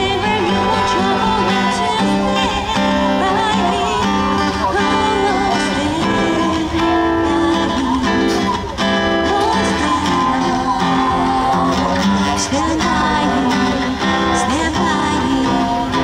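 Live singing with acoustic guitar accompaniment: a song performed by a voice and a strummed or plucked acoustic guitar.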